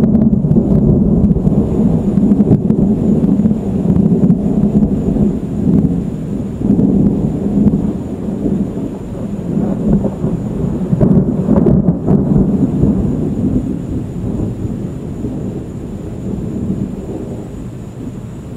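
Long rolling thunder from a dry thunderstorm: a deep rumble that swells and surges repeatedly, then slowly fades over the last few seconds.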